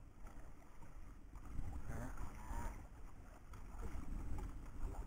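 Sea and wind noise aboard a small wooden outrigger boat: a steady low wind rumble on the microphone with water lapping against the hull.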